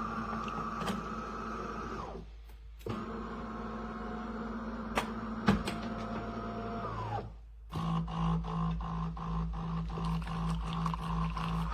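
A small motor running with a steady hum. It cuts out briefly twice, and after the second break it comes back at a lower, pulsing pitch, with a few sharp clicks along the way.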